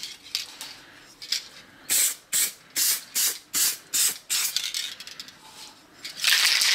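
Aerosol can of metallic blue spray paint hissing in short, quick bursts, two or three a second, then a longer burst near the end: light passes laying on a thin coat.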